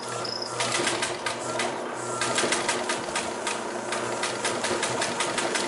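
1951–52 Singer 16-188 industrial walking-foot sewing machine stitching through layered denim, running in a fast, even clatter of stitches.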